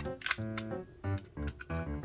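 Music: a quick run of short pitched notes over low bass notes.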